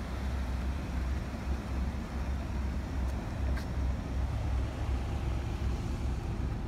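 2003 Saturn LW300 wagon's 3.0-litre V6 idling, a steady low rumble. There is one faint click about three and a half seconds in.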